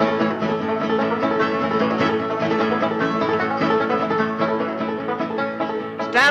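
Bluegrass music led by a picked banjo: the instrumental opening of a song.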